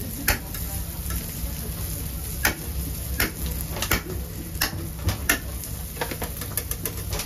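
Metal knife and tongs clicking and scraping against a steel grill grate as grilled fish is split and boned, a dozen or so sharp, irregular clicks. Under them a low steady hum and a faint sizzle.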